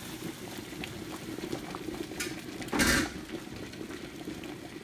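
Water at a rolling boil in a large aluminium stockpot with its lid off, bubbling steadily. A short, louder noise breaks in about three seconds in.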